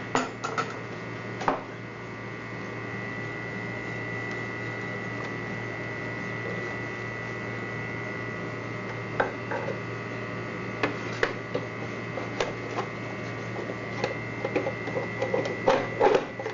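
Scattered small clicks and knocks of parts being handled and fitted together while a portable garment steamer is reassembled, more of them in the second half, over a steady electrical hum with a constant high tone.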